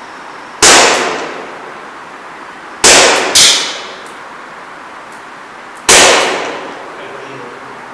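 ASG CZ P-09 gas blowback airsoft pistol firing three single shots, about three seconds apart, each a sharp crack of gas and cycling slide followed by a long echo. Another sharp knock with a brief ring comes about half a second after the second shot.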